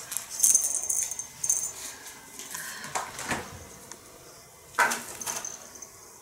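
Light metallic jingling, several times, with a few soft knocks, while a cat stalks a feather teaser wand.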